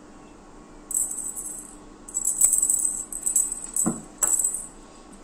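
A cat teaser wand toy jingling as it is shaken for kittens, in irregular bursts about one, two and four seconds in, with a dull knock about four seconds in.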